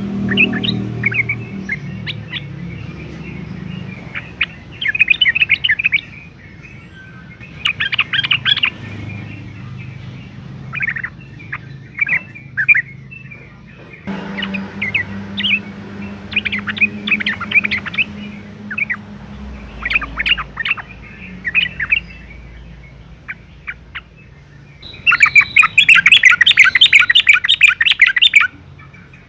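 Yellow-vented bulbul (trucukan) singing in bursts of quick chattering, bubbling phrases, repeated every second or two, with a louder, faster run of rapid notes near the end.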